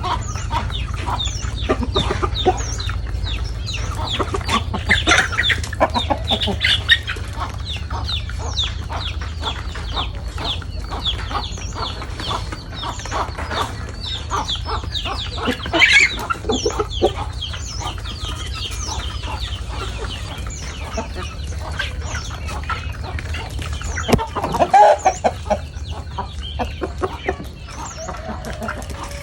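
Chickens clucking and calling in a steady stream of short notes, with a few louder calls about halfway through and again near the end, over a steady low rumble.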